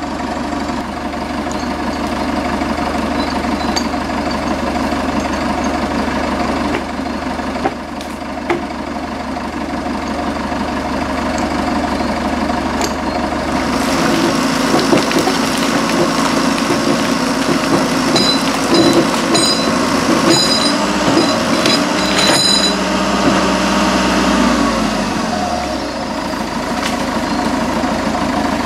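Tractor engine running steadily, getting louder about halfway through, with a few short high clinks in the latter part.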